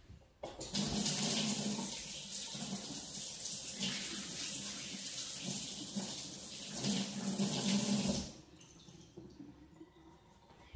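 Kitchen faucet running into a stainless steel sink while something is rinsed under the stream. The water comes on about half a second in and is shut off suddenly about eight seconds in.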